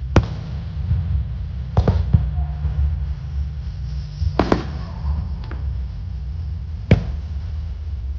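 Fireworks shells bursting overhead: about six sharp bangs at uneven gaps, the loudest near the end, over a steady low rumble.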